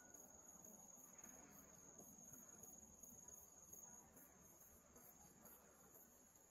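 Near silence with a faint, steady, high-pitched insect trill.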